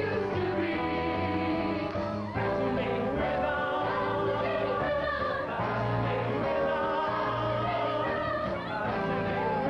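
Song-and-dance number: a band plays under a group of voices singing long held notes, over a steady bass line.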